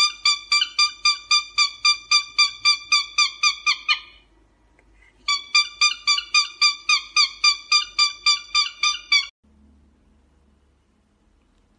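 Cockatiel giving rapid, evenly spaced whistled chirps, about four a second, in two long runs with a short pause between them. The calling cuts off suddenly about nine seconds in.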